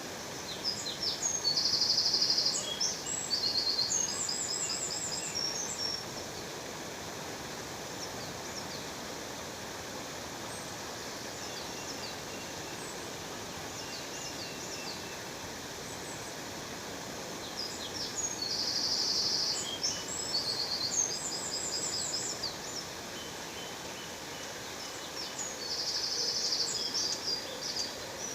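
Steady rushing of a waterfall, with a songbird singing in three bursts of quick chirps and trills, near the start, about two-thirds in and near the end.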